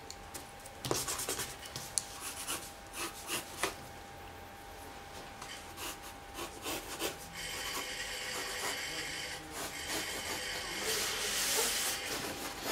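Graphite pencil sketching on drawing paper. First come separate short scratchy strokes, then from about halfway a denser, steadier run of strokes, loudest near the end.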